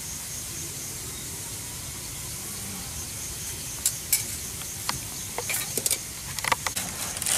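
A steady hiss, with scattered sharp clicks and clinks of metal tongs and a ladle handling food on plates and a cutting board, starting about four seconds in and growing busier toward the end.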